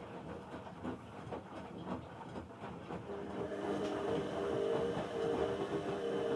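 Bauknecht WA aquaton 1400 washing machine running a wash cycle. For the first few seconds there is irregular clacking and knocking; about three seconds in, a steady motor hum starts and the sound gets louder.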